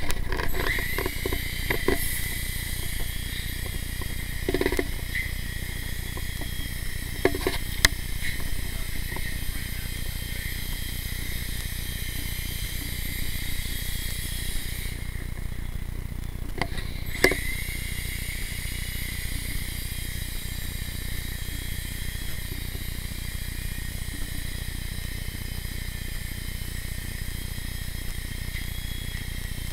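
Blade mCX Tandem Rescue micro RC helicopter's small electric motors and twin rotors whining steadily in flight, with a few sharp knocks. Past halfway the whine briefly drops away, then a knock and a rising note bring it back up.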